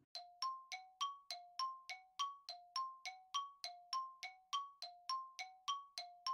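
Repeating two-note chime, short bell-like tones alternating low and high at about three and a half strikes a second, like a ticking clock. It is a think-time cue laid under a pause for the listener to answer.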